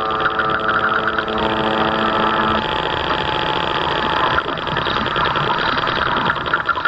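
Radio-controlled scale model fishing boat's motor and drive running steadily under way, heard close from a camera on its deck, as a fine, fast pulsing hum. A few steady held tones sound over it for the first two and a half seconds.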